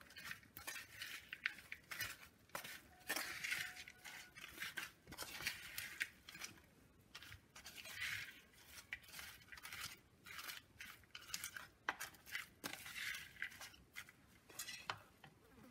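A spoon stirring and scraping a mixture of fried brinjal and sprats in an earthenware clay pot: repeated, irregular scraping strokes with sharp clicks of the spoon against the pot.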